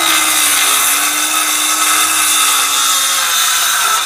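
Ryobi cordless circular saw cutting across a wooden board, its motor pitch sagging slightly under the load of the cut. The saw stops abruptly near the end as the cut finishes.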